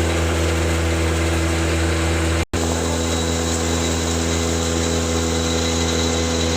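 Pulveriser grinder machine running at a steady speed, a constant loud hum with a few steady tones over it. The sound drops out for an instant about two and a half seconds in, then carries on unchanged.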